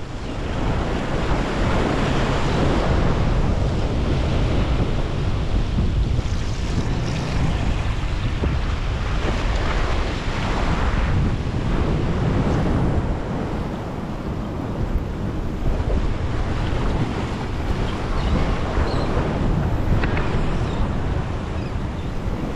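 Ocean surf washing and breaking over the rocks of a jetty, surging and easing every few seconds, with wind buffeting the microphone.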